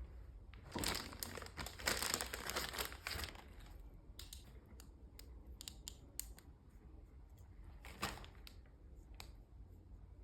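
Packaging being handled and opened: a dense crinkling rustle starting about a second in and lasting some two seconds, then scattered light taps and clicks, with another short rustle near eight seconds.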